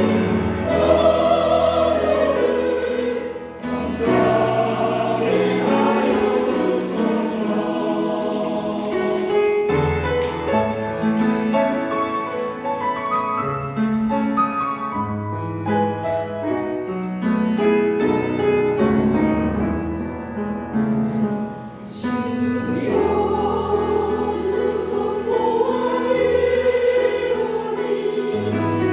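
Choir singing a slow Christian song with instrumental accompaniment.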